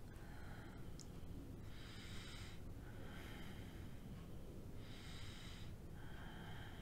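A woman breathing slowly and quietly, about two breaths in and out, over a faint steady low hum.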